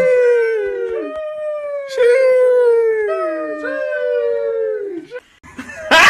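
A dog howling: a run of long howls, each sliding down in pitch, one after another.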